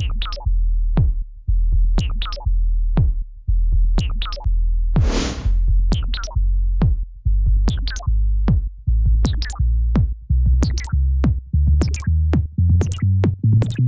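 Electronic music with a drum-machine beat and deep bass. There is a rushing swell about five seconds in, and the hits come faster near the end.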